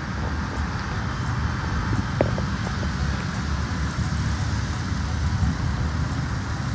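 Road traffic noise by the roadside, with wind rumbling on the phone microphone.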